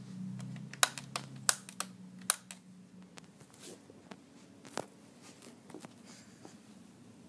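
A handful of sharp, irregularly spaced clicks and clacks, most in the first two and a half seconds and one more near five seconds, over a low hum that fades out about three seconds in.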